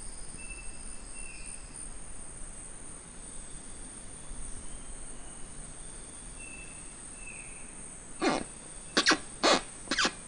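Forest ambience: a steady high insect drone with a few short chirping bird calls. Near the end comes a quick run of about five short, loud monkey squeaks.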